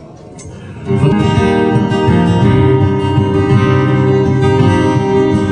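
A live folk band strikes up the instrumental introduction to a song about a second in, after a brief hush, and plays on with steady, sustained notes.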